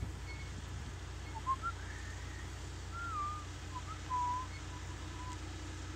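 Someone whistling a few short notes that slide up and down, with one briefly held note about four seconds in, over a steady low rumble.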